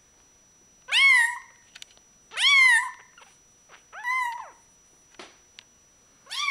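Newborn Bengal kitten mewing loudly: three high-pitched cries about a second and a half apart, each rising then falling in pitch, and a fourth starting near the end.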